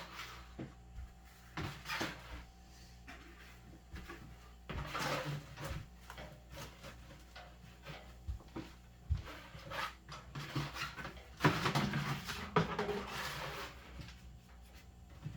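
Handling noise from the plastic feeder containers: scattered knocks and clicks with longer scraping and rustling spells, the loudest about five seconds in and again from about ten to thirteen seconds in.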